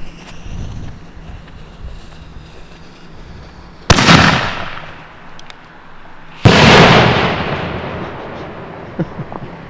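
A 5-inch James Bond salute canister shell firing from its mortar tube. A sharp launch boom comes about four seconds in, then about two and a half seconds later the salute breaks overhead with a loud report that rolls off over a second or two.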